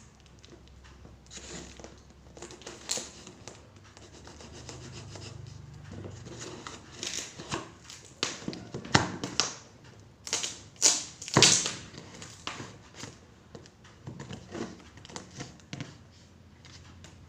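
A package being opened by hand: rustling, crinkling and tearing of the wrapping, with scattered knocks and clicks. It is busiest and loudest about two-thirds of the way through.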